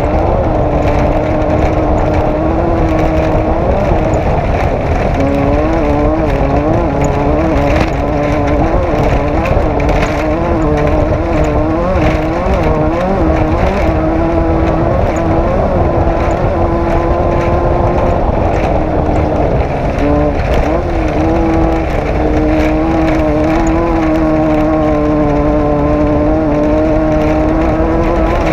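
Desert off-road race vehicle's engine running hard at high, fairly steady revs. The pitch wavers up and down from about five to fourteen seconds in and dips briefly around twenty seconds. Under it runs a constant loud rush with frequent knocks and rattles.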